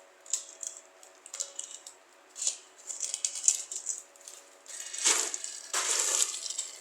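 Small metal jewellery being handled, clinking and jingling lightly in short irregular spurts, with a fuller rattle and rustle in the last couple of seconds.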